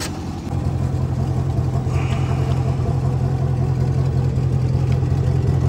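C6 Corvette's V8 engine running steadily at low revs as the car creeps along, a deep, even exhaust drone that grows slightly louder about half a second in.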